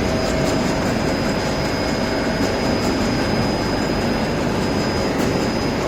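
Steady running noise of a UV coating line's machinery (roller coater and UV curing conveyor), with a thin steady high-pitched whine over it.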